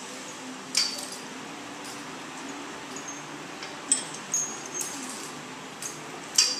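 Metal horse tack clinking and jingling as a bridle comes off a horse and a halter goes on: bit rings, buckles and snaps rattling. A sharp jingle about a second in, a cluster of them around four to five seconds in, and the loudest near the end.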